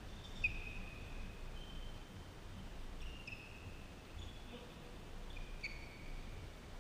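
Faint, scattered short squeaks of court shoes on a badminton court floor, a handful of high squeals, the sharpest about half a second in and again near the end, over a low steady hall rumble.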